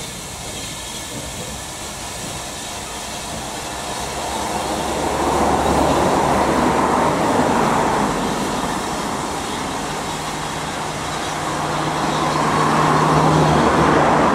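Small steam tank locomotive moving slowly along the track, steam hissing over a low rumble. The sound swells twice, about a third of the way in and again near the end.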